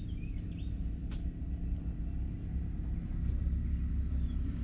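A steady low rumble, with a few faint goose honks near the start and again near the end, and a single brief click about a second in.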